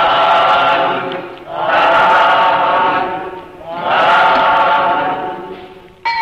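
Several voices chanting three long, drawn-out calls of "sadhu", the Pali call of approval that closes a Buddhist recitation. A bright ringing bell tone starts right at the end.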